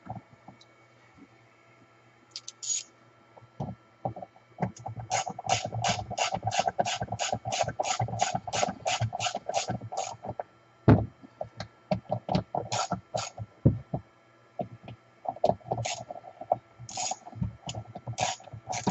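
Hand ratchet tool clicking in an even run of about three clicks a second for several seconds as a fastener is tightened, with scattered knocks and clatter of metal parts around it, the loudest knock about eleven seconds in.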